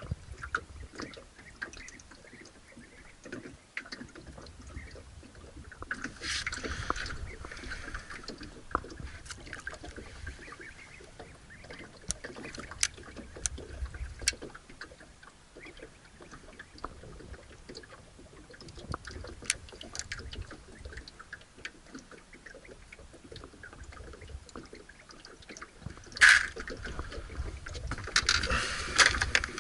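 Fishing gear being handled in a small boat: scattered small clicks and knocks, with two longer rustling hisses, one about six seconds in and one near the end, over a low rumble.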